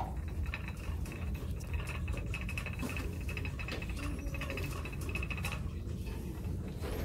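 Shopping cart being pushed across a tile floor: a steady low rumble with light rattling and clicks.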